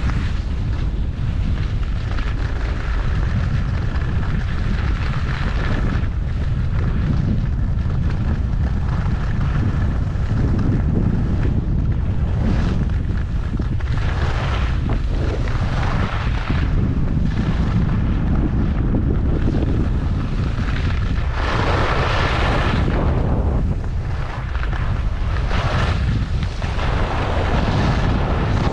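Wind buffeting the microphone during a fast downhill ski run, a steady low rumble. Over it, the skis scrape and hiss on hard-packed groomed snow in bursts at the turns, loudest about three-quarters of the way through.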